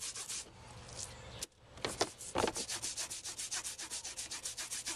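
Toothbrush scrubbing hard on an algae scrubber screen to strip algae growth from it, in rapid back-and-forth strokes about seven a second. The strokes stop briefly about half a second in and start again with a few louder knocks around two seconds.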